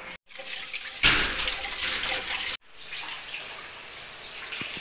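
Running water, a loud, even rush starting about a second in and lasting about a second and a half, between quieter stretches of kitchen noise cut short by edits.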